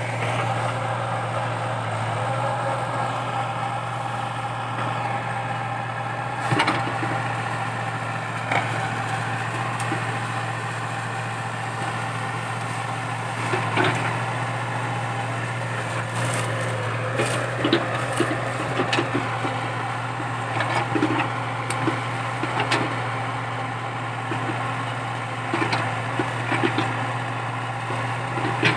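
Komatsu PC80 excavator's diesel engine running steadily, with scattered sharp cracks and splintering of wood as a eucalyptus stump and its roots are torn out; the cracks come more often in the second half.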